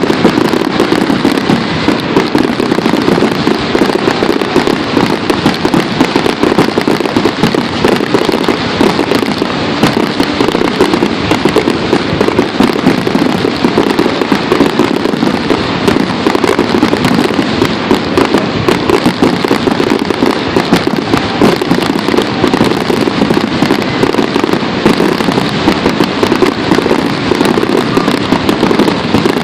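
Fireworks going off in a loud, dense, continuous barrage: many bangs and crackles overlapping so closely that they merge into one unbroken rattle.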